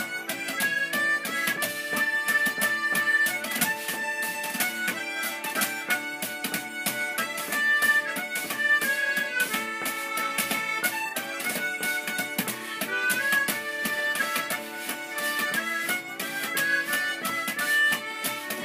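Harmonica playing a lively melody, with quick, steady taps on a cardboard box keeping the beat.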